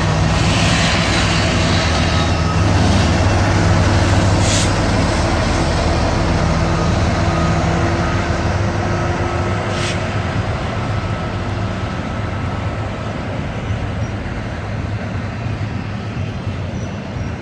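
Freight train led by a BNSF ET44C4 and a UP SD70AH diesel locomotive passing, the locomotives' engines droning strongly over the rumble of rolling wheels and fading after about ten seconds as the freight cars roll by. Two sharp clicks, about four and ten seconds in.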